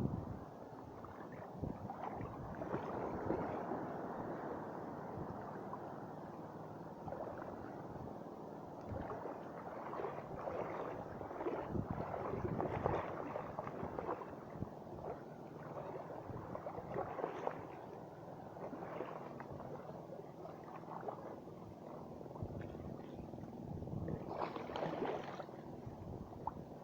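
Water splashing and sloshing in irregular surges while a hooked fish is fought and brought in on the line.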